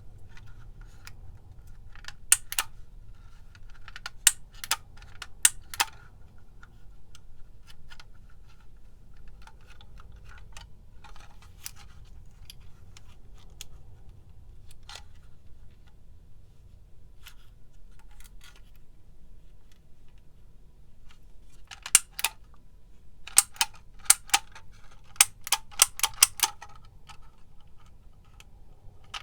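Handheld manual label maker clicking sharply as it is worked to print on the label tape. There are a few clicks in the first few seconds, then scattered faint ones, then a quick run of about a dozen near the end.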